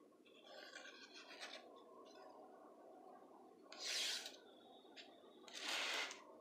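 Pencil scratching on a plywood sheet as it is drawn along the edge of a cut-out wooden letter, in short faint strokes, with two louder scratching passes about four and six seconds in.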